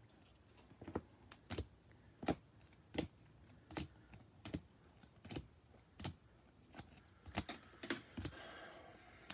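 Rigid plastic trading-card top-loaders clicking against one another as cards are flipped through one at a time: about a dozen sharp clicks, roughly one every two-thirds of a second.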